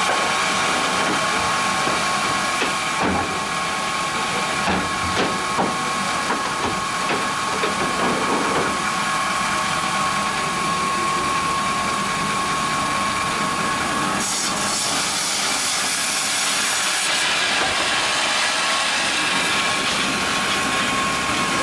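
Mebor HTZ 1300 horizontal band sawmill running with a steady whine, with a few knocks in the first half. About fourteen seconds in, a loud hiss sets in as the band blade cuts into the log.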